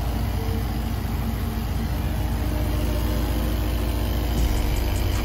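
An engine idling steadily with a deep, low rumble.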